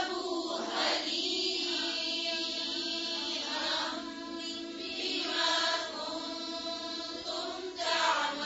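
Quranic verse chanted in melodic tajweed style by a woman's voice, with long, drawn-out notes and few breaks.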